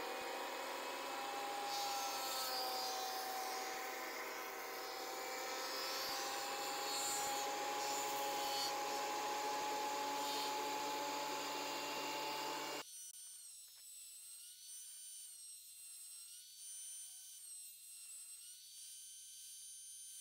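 Craftsman benchtop thickness planer running at speed while a board is fed through and shaved down to 1/4 inch. The machine sound stops abruptly about two-thirds of the way in, leaving only faint background.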